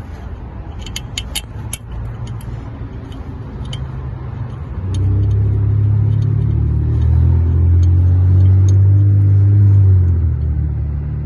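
A motor vehicle engine running, its low hum growing louder about five seconds in and easing off near the end. A few light metallic clicks, like bolts or a tool being handled, come a second or two in.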